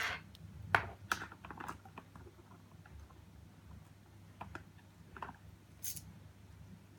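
Light clicks and taps of a key and small padlock parts being handled on a bench: a quick run of clicks in the first two seconds, then a few single clicks.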